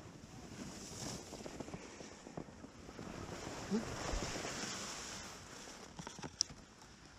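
Skis sliding over packed snow, a hiss that builds and then fades, with wind on the microphone and a few sharp clicks near the end.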